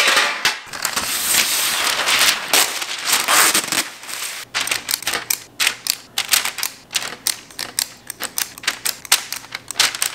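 A metal baking sheet set down on a countertop, then parchment paper crinkling for a few seconds as it is spread over the sheet. From about halfway on, a spring-lever metal cookie scoop clicks and scrapes over and over, dropping balls of cookie dough onto the tray.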